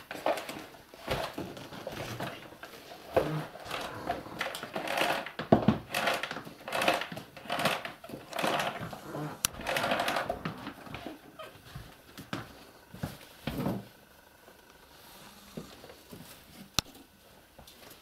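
Irregular knocks, clicks and rustling from a canister vacuum cleaner being handled while its motor is off. A sharp click comes about nine seconds in, and the handling noise dies down in the last few seconds.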